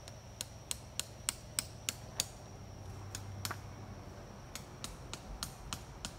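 Tent stake being hammered into the ground: seven sharp, evenly spaced strikes at about three a second, followed by a few more scattered strikes.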